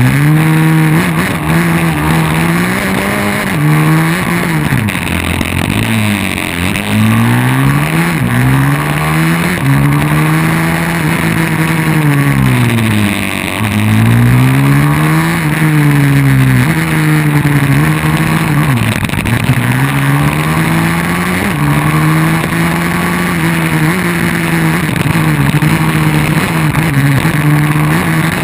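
A 150 cc pit bike's single-cylinder four-stroke engine heard from an onboard camera while racing. The engine holds steady revs for about two seconds, then climbs and falls over and over, every two to three seconds, as the rider accelerates out of and brakes into tight turns. Wind rushes over the microphone throughout.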